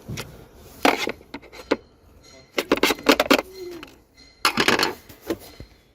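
Hard objects clattering and clinking in three short bursts, the middle one the longest.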